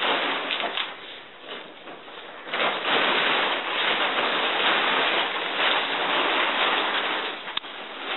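Dome tent fabric rustling and swishing as it is swung and spread out on the floor, quieter at first and loud from about two and a half seconds in.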